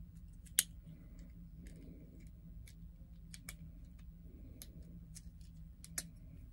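Small plastic clicks and snaps as the joints and panels of a Transformers EarthSpark Hashtag figure are moved through its transformation, with two sharper snaps, about half a second in and near the end. A steady low hum runs underneath.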